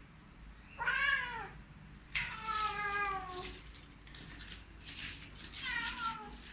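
Domestic cat meowing three times, each meow falling in pitch, with the second the longest.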